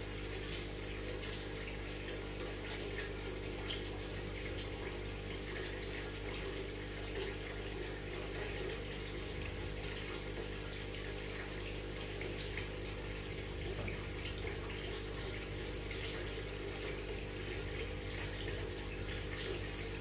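Aquarium filter water running and splashing steadily with faint bubbling crackle, over the low steady hum of the pump motor.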